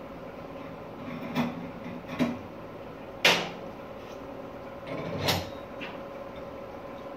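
Flat board pieces being handled on a workbench: four sharp knocks and clatters as they are set down and shifted, the loudest about three seconds in. A steady hum runs underneath.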